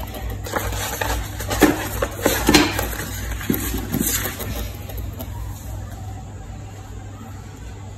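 A paper pattern sheet rustling and a flat metal blade clattering as they are handled on a wooden panel, over a steady low hum. The clatters are short and sharp and come in a cluster over the first four seconds, loudest twice about a second apart, then die away and leave the hum.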